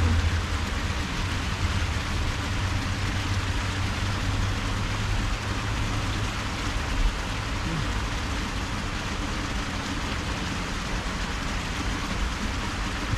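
Steady rushing noise of flowing canal water, with a low hum in the first few seconds that fades out.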